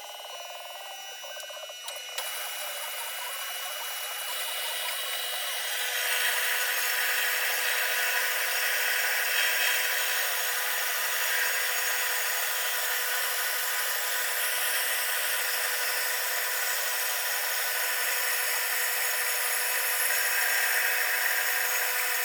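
Homemade band saw running, its blade cutting through a workpiece as the hydraulic feed lowers it: a steady sawing and rubbing noise. It grows louder about two seconds in and again about six seconds in, as the cut takes hold, then holds steady.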